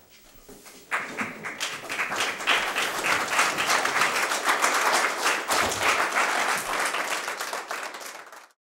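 Applause from a group of people, starting suddenly about a second in, then dying away and stopping just before the end.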